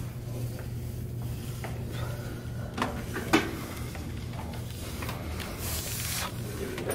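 Gym weight machine being worked through reps, its moving parts sliding and knocking, with one sharp knock about a third of the way in, over a steady low hum of the room.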